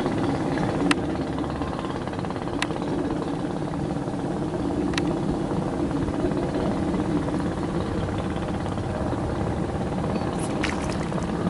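An engine or motor running steadily, a continuous low drone. Three sharp clicks stand out about one, two and a half and five seconds in, and a few faint clicks come near the end.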